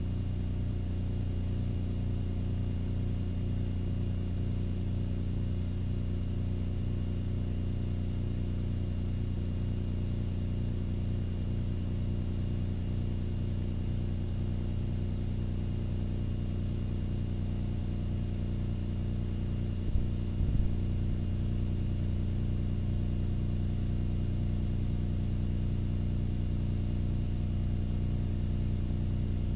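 Steady electrical hum and buzz with a thin high whine over it, from the empty end of a videotape recording with no programme sound. A couple of brief clicks come about twenty seconds in.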